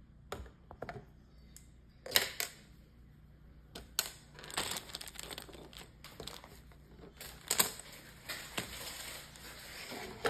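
Small plastic Lego bricks clicking and clattering as they are handled and pressed together or pried apart, with a few sharp clicks, the loudest about two seconds in and again past the middle, over light rustling.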